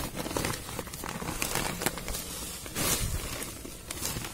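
Thick plastic bag crinkling and rustling in a run of short, irregular rustles as it is gripped and handled while it is filled with heavy soil.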